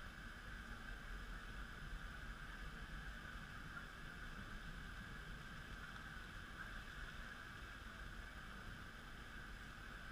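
Faint, steady outdoor background noise: an even hiss with a low rumble and a constant mid-pitched hum, with no distinct event.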